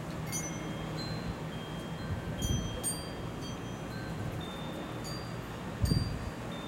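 Wind chimes ringing in gusty storm wind, a few clear high notes struck at a time at irregular moments. Wind buffets the microphone underneath, with a stronger gust near the end.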